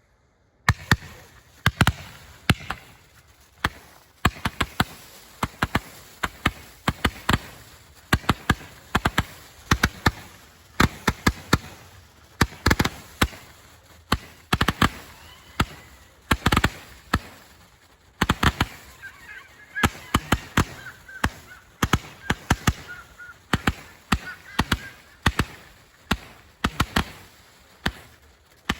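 Bundle of T-Sky Lightsaber Roman candle tubes firing as a barrage. It starts suddenly about a second in with a rapid, uneven string of sharp pops, many in quick clusters, and keeps going.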